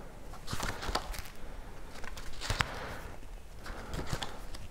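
A paper book being handled: pages rustling as they are turned and the stiff binding is pushed open, with a few light taps.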